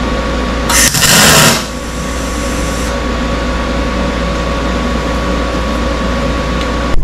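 Electric arc welding on the mini excavator's steel, with a steady machine hum throughout. A loud burst of arc noise comes about a second in and lasts under a second.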